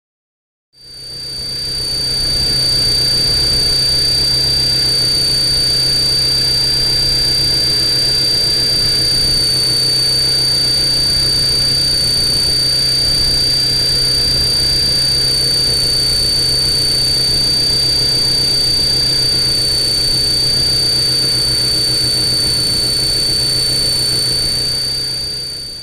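Electric motors and propellers of a radio-controlled multicopter running steadily, heard up close from a camera on board the craft, with a constant high whine over a low hum. The sound fades in about a second in, and the whine dips slightly in pitch near the end.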